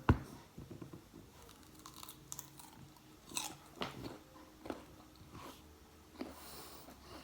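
A bite into a crunchy seedless guava, two sharp cracks at the start, followed by chewing with scattered crisp crunches.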